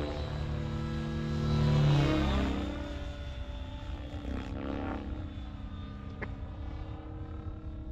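Align T-Rex 700X RC helicopter in flight, its main rotor spinning at about 2000 rpm headspeed. The rotor and motor whine slides in pitch as it manoeuvres and passes, loudest about two seconds in.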